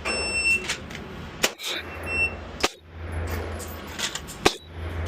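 Three sharp pistol shots, irregularly spaced about a second or two apart, with a short high-pitched beep near the start.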